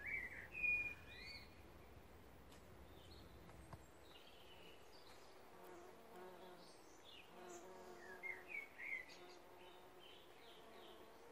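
Bumblebees buzzing at tree echium flowers: a faint, low hum that comes and goes through the second half. Small birds chirp near the start and again about eight seconds in, and these chirps are the loudest sounds.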